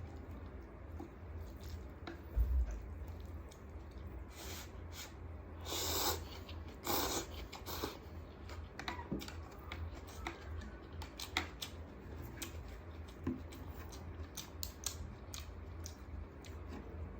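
Close-miked mukbang eating sounds: many small scattered clicks and taps, like utensils or crisp food handled near the microphone, with two short louder crunching or slurping bursts about halfway through, over a low steady hum.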